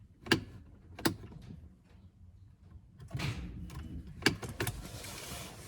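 Two sharp clicks about a second apart, then a quiet spell, then shuffling handling noise with a couple more knocks; no engine is running or cranking.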